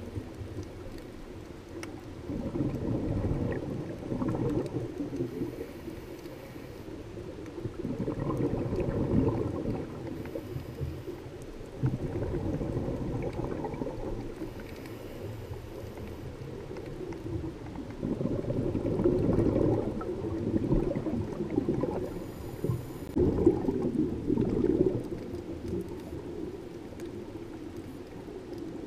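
A scuba diver's regulator exhaust bubbling underwater, in bursts of a couple of seconds every four to five seconds, with a faint hiss of inhaling between some of them.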